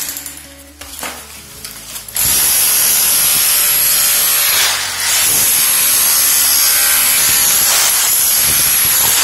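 Corded rotary hammer driving a chisel bit into wooden floorboards to break them up, running loud and steady from about two seconds in, with a short letup near the middle.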